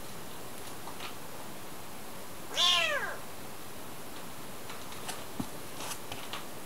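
A very young kitten's high meow, rising then falling in pitch, about two and a half seconds in, after a fainter short mew about a second in. A few faint ticks follow near the end.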